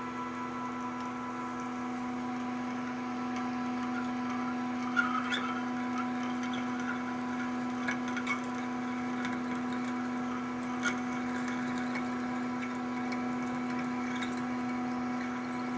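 Machine spindle running steadily at one pitch while a 13/16-inch annular cutter drills a hole through an aluminium plate, with a few sharp ticks from the cut now and then.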